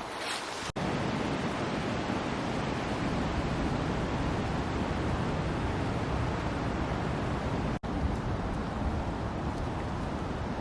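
Strong wind blowing over the microphone: a steady rushing noise, heaviest in the low rumble, broken by two very short gaps, one under a second in and one about eight seconds in.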